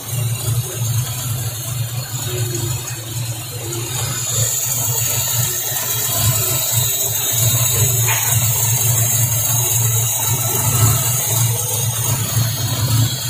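Toyota Corolla DX's four-cylinder engine idling steadily, running on a Shogun CDI ignition unit fitted in place of its contact-breaker points.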